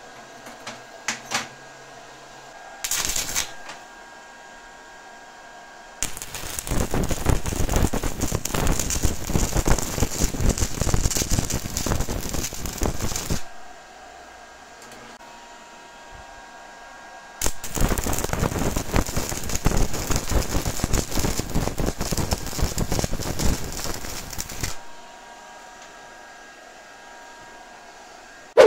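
Stick (MMA) welding arc crackling and sputtering from a handheld mini stick welder joining 2 mm steel square tube, in two runs of about seven seconds each. A few clicks and a short burst come first, about three seconds in.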